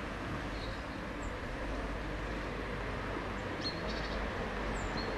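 Outdoor ambience: a steady background noise with a few short, high bird chirps scattered through it, one near the start, a small cluster a little past halfway, and more near the end.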